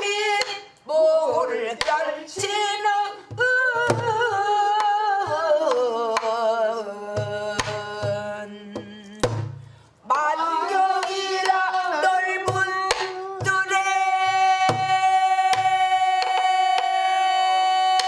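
A woman singing a Korean folk-style song with wide vibrato and sliding pitch while accompanying herself on a buk barrel drum, whose part is heard as low drum strokes and sharp stick taps. After a short breath about ten seconds in, she holds one long note.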